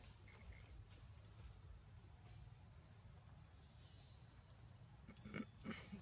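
Near silence under a faint, steady high-pitched insect drone. Two brief, louder sounds come near the end.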